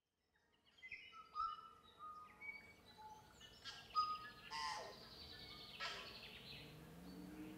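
Several birds singing and calling together: a busy mix of short whistled notes and chirps at many pitches, starting about half a second in. A few louder calls sweep down in pitch, the strongest about a second and a half in.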